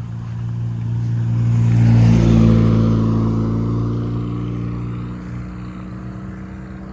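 A car with a loud motor passing close by at light throttle, growing louder to a peak about two seconds in and fading over the next few seconds, over a steady low engine hum.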